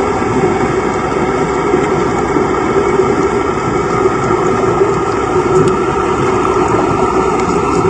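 Boat engine heard underwater: a steady, unbroken drone with a constant hum.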